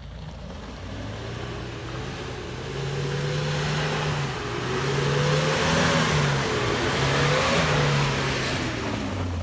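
An off-road vehicle's engine accelerating under load, its pitch climbing and dropping three or four times, over a rushing hiss that grows louder through the middle.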